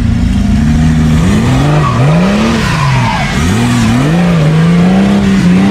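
Off-road 4x4 engine revving up and down again and again under load as the jeep claws up a rocky dirt climb, its wheels spinning and throwing dirt.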